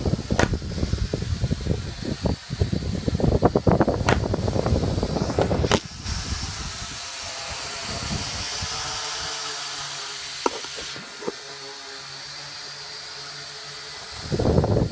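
Small toy quadcopter's motors buzzing during a flight, with rattling, crackle and short knocks. About six seconds in it drops to a quieter steady hiss, and the loud buzzing and crackle return near the end.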